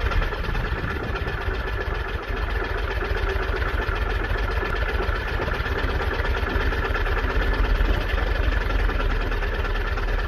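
Freshly rebuilt Porsche 996 M96 3.9 flat-six idling steadily on its first start, cold. Tappet clatter runs through it, along with the sound of a blowing exhaust joint.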